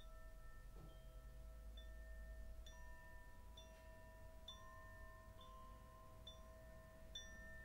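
Faint chime-like background music: soft bell notes struck about once a second, each ringing on so that the tones overlap, over a low hum.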